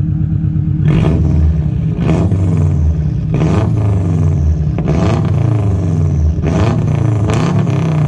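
Subaru Forester 2.5 XT's turbocharged EJ255 flat-four, rear silencer removed, blipped from idle about six times, each rev rising and falling quickly. Between blips it settles back to a burbling boxer idle.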